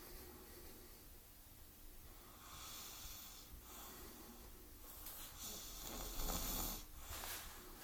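Quiet snoring in sleep: slow breaths, the loudest snore about six seconds in.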